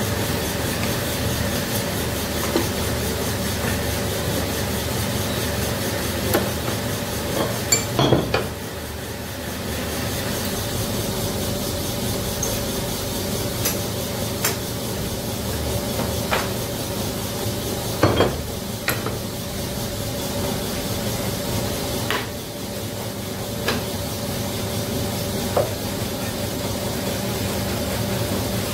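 Connecting-rod bush boring machine running with a steady hum, while metal parts clink and knock every few seconds as the connecting rod and steel bar are handled; the loudest knocks come about eight and eighteen seconds in.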